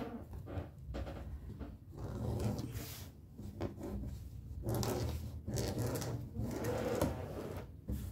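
Electric sewing machine stitching broderie anglaise trim onto a fabric border, running in uneven stretches with clicks and cloth handling between runs.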